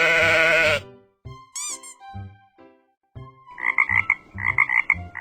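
A sheep bleats once at the start. Then a frog croaks in three short runs of rapid pulses, from about three and a half seconds in.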